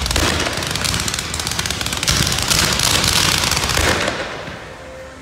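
Fireworks display going off in a rapid barrage of dense popping and crackling, dying away about four seconds in.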